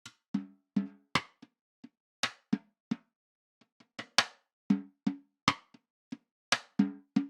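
Peace SD134 14x4-inch anodized aluminium snare drum being played: an uneven pattern of loud accented hits and faint ghost notes, each hit ringing briefly, with a short pause about three seconds in.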